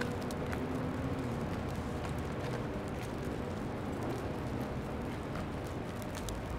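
Steady city street noise with a vehicle engine running nearby, its hum dipping slightly in pitch about a second in, and scattered faint ticks.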